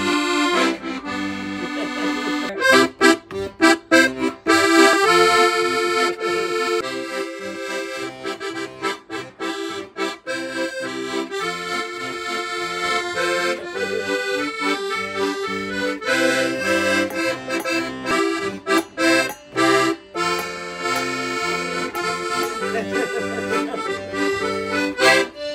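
Piano accordion playing a polka tune: a right-hand melody over a stepping bass accompaniment, with a few brief breaks between phrases.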